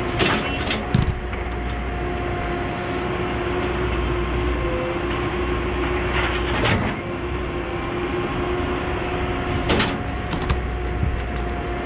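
Cat 314E tracked excavator running steadily at work, with a steady whine over the engine and a few sharp knocks and clatters, about a second in, near the middle and near the end, as the bucket works the rock.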